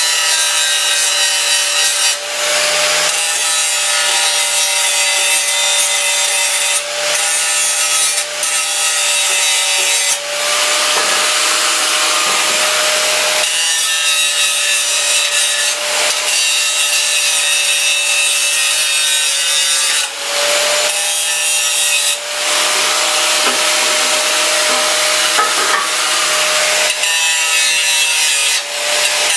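Power grinder running against metal, grinding spots clean to prepare them for welding: a steady high whine over a harsh rasping hiss, briefly easing off several times as the grinder is lifted or moved.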